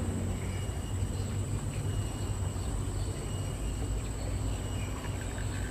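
Insects droning steadily at a high pitch over a constant low rumble, with a quick run of ticks near the end.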